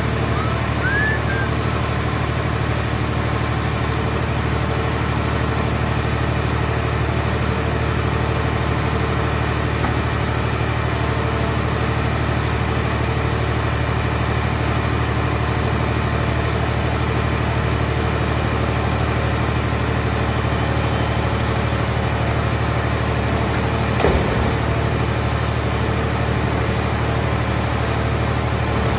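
Mobile scrap car-body baler's engine-driven hydraulic power unit running steadily with a low hum and a thin high whine. A single short knock sounds once near the end.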